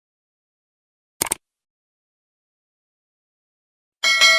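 Mostly dead silence. A short burst of a sound effect comes about a second in, and near the end a bright, ringing bell-like chime strikes and keeps ringing.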